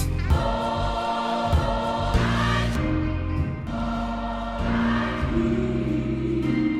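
Background music: a slow passage of held, choir-like sung chords with no drum beat.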